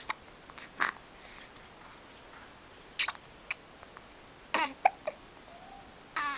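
Repeated hiccups: short, sudden catches, some with a brief squeak of voice, coming at irregular intervals of under a second to about two seconds.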